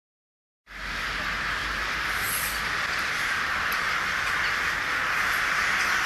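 A huge flock of rooks and crows calling all at once, their caws merging into a dense, steady din, with a faint low rumble beneath; it starts abruptly under a second in.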